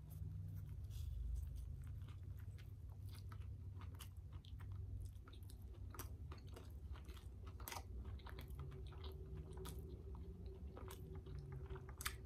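A person chewing mouthfuls of a burger with a large cheese curd patty and fresh vegetables: faint, irregular crunching and wet chewing made of many small clicks.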